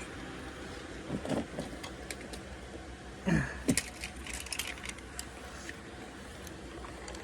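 Car cabin noise: a steady low drone of engine and road, with scattered small clicks and rattles and a couple of short vocal sounds about a second and three and a half seconds in.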